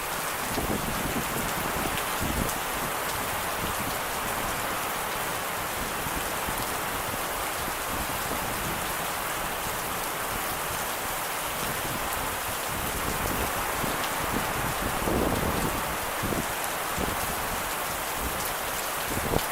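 Steady rain falling during a thunderstorm, an even hiss of rain with scattered drop impacts.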